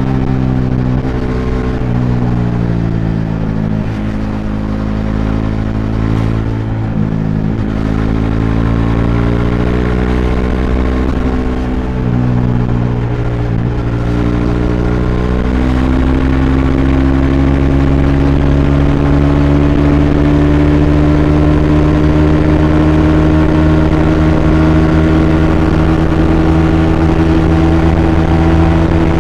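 Bajaj Dominar 400's single-cylinder engine heard from onboard while riding. Its pitch drops and steps several times over the first half as the bike slows and changes gear. In the second half it climbs slowly and steadily under throttle, getting slightly louder.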